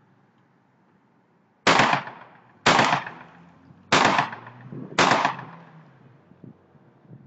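Four gunshots about a second apart, each followed by an echo that trails off.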